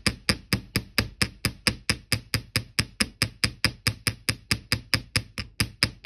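Small metal hammer tapping copper wire loops on a steel bench block in a quick, even rhythm of about five strikes a second. The hammering flattens the loops and hardens the wire to strengthen it.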